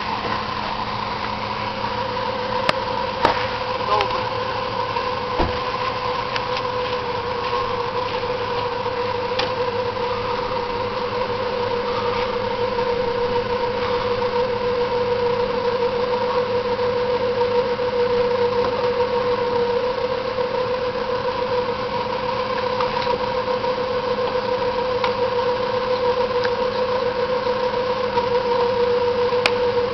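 Ford Mustang convertible's power soft top being raised, with the car running: a steady whine throughout, a few sharp clicks in the first several seconds, and the sound growing a little louder about halfway through.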